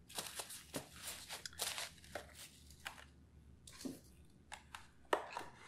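Hands rummaging through foam packing peanuts in a cardboard box, a run of crunchy, crinkling rustles that thin out after about three seconds.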